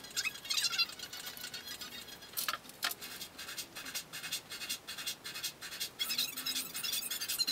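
Pencil scratching across paper in many short, quick strokes while tracing around a pattern.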